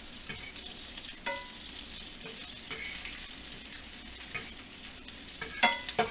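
Bacon sizzling in a frying pan, a steady hissing, while a metal fork turns the strips and clinks against the pan a few times, loudest near the end.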